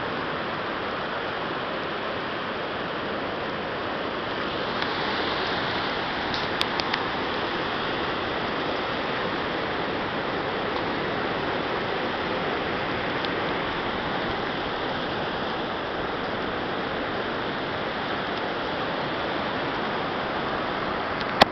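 Steady rush of surf. There are a few faint clicks about six and a half seconds in and a sharper click near the end.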